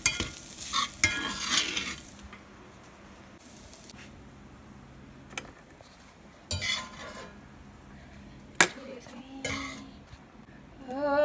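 A metal spoon scraping and stirring scrambled eggs in a cast-iron skillet, in short bursts. There is a single sharp metallic clink a little past the middle as the eggs are dished into a stainless steel bowl.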